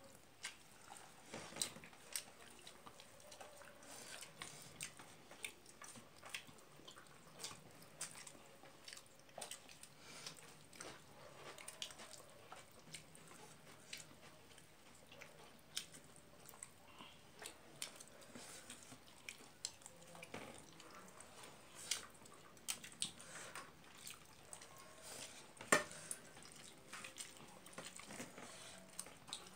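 Eating by hand with close, wet sounds: fingers squishing and mixing rice and egg curry on a plate, with chewing. Faint, irregular clicks and smacks, one sharper near the end.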